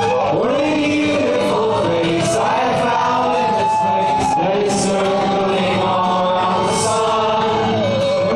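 Live solo performance of a man singing to a strummed acoustic guitar, with several audience voices singing along.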